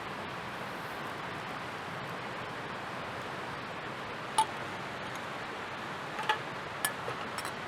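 Wood campfire crackling: a few sharp pops over a steady hiss, the loudest pop about halfway through and several more near the end.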